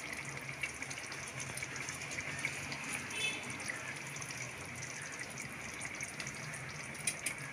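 A steady low hiss with faint liquid drips as half a lemon is squeezed by hand over hot chicken gravy in an open aluminium pressure cooker.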